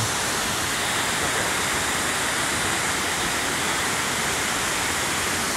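A tall waterfall pouring down into its pool: a steady, even rush of falling water.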